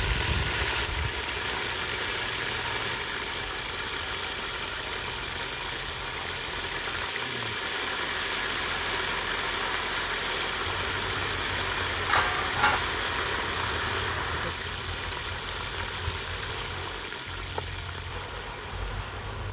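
Hot oil sizzling steadily in a steel cooking pot as whole spices fry in it, with a low rumble underneath and two sharp clicks about twelve seconds in.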